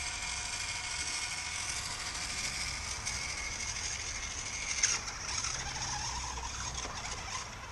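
Toy remote-control four-wheeler's small electric motor and plastic gearbox running steadily with a high whine, the toy circling on locked left-hand steering. A brief click about five seconds in.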